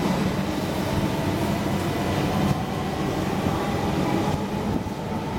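London Underground 1992 Stock tube train running into a station: a steady rumble of wheels on rail with a faint steady whine above it.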